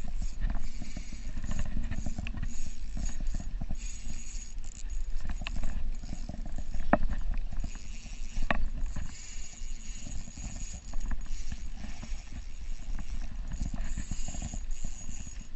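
Wind rumbling and buffeting on the microphone, with two sharp clicks about seven and eight and a half seconds in.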